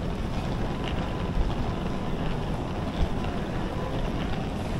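Wind buffeting the microphone of a walking camera, a steady low rumble.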